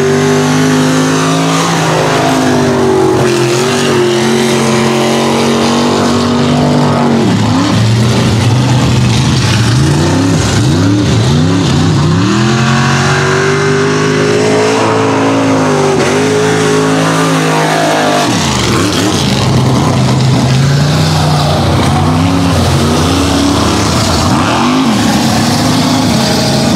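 A custom-built 572 cubic-inch big-block Chevrolet V8 in a 1000-horsepower mud racing truck, revving hard under racing load. Its pitch climbs, then drops sharply several times as the throttle comes off and goes back on.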